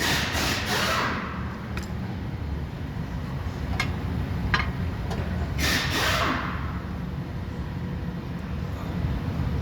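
Two scrapes and a few sharp clicks of metal parts as a Nissan Rogue front strut is lifted and worked into its mounting hole, over a steady low rumble.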